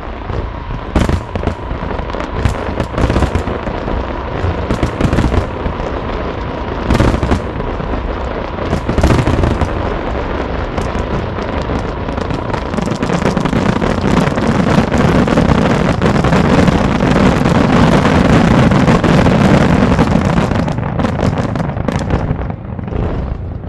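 Aerial fireworks going off in a rapid barrage, many bangs and crackles close together. About halfway through they thicken into a continuous rumbling mass, then thin out near the end.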